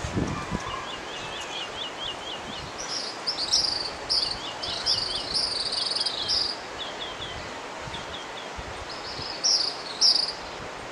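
Songbirds calling over the steady rush of a mountain river: quick runs of short high chirps, with louder buzzy calls in the middle and again near the end.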